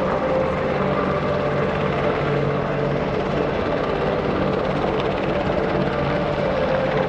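UH-60 Black Hawk helicopter flying low and slow close by: steady rotor noise from its twin turbine engines, with a steady whine above it.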